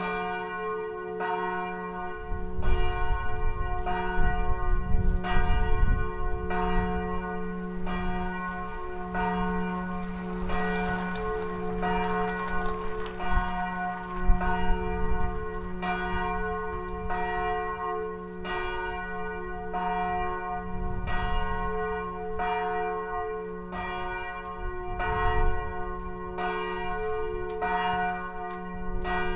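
The middle bell of a Catholic church's peal, tolled alone for mass, struck steadily about once every 1.3 seconds, its hum ringing on between strokes.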